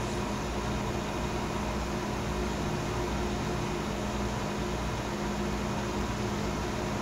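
Steady whir of a powered car amplifier's cooling fan, with a constant low hum under it, as a Taramps HD 3000 runs on the bench without going into protection.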